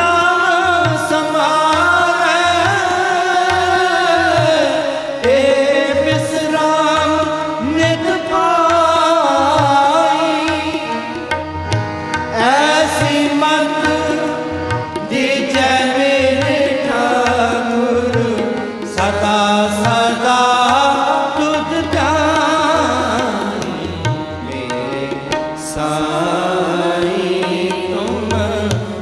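Sikh shabad kirtan: voices singing a Gurbani hymn in long, gliding melodic phrases, accompanied by harmoniums, with tabla keeping a steady beat underneath.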